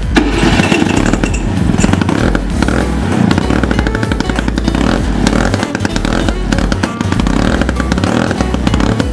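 Vespa PX single-cylinder two-stroke engine, fitted in a Vespa Tank scooter, running with an uneven, fluctuating level.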